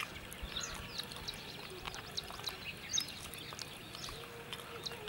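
Small birds chirping: many short, high chirps scattered irregularly over faint background noise.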